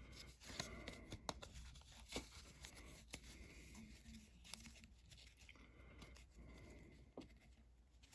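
Faint tearing and rustling of a trading-card pack wrapper being opened and the cards handled, with a few soft clicks.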